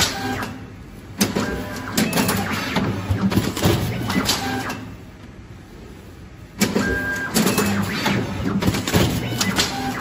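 Automatic cling-film tray wrapping machine running through its wrapping cycles. It clatters and clicks with a motor running underneath, in two long bursts: one from about a second in to near the halfway point, and another from about two-thirds of the way in almost to the end.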